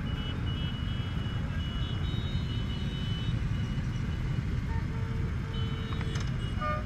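Steady low rumble of many motorcycle engines in a slow-moving pack, the rider's Honda Gold Wing 1800 among them. A few short horn toots sound in the second half.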